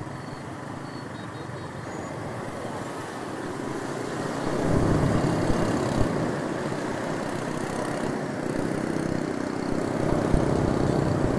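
Busy street traffic of motor scooters and cars, heard from a scooter in the middle of it. It grows louder about four and a half seconds in as the traffic moves off from the light.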